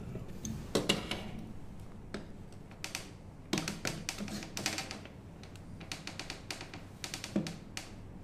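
Light clicks, taps and clinks of espresso-making gear being handled on a perforated metal drip tray and wooden counter, coming in irregular quick runs.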